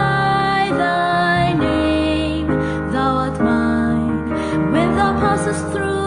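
A slow, gentle song: a singing voice held over sustained piano chords.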